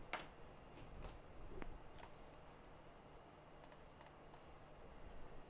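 About eight light, sharp clicks and taps at irregular intervals, from small tools and parts being handled at a microsoldering workbench, over a faint steady low hum.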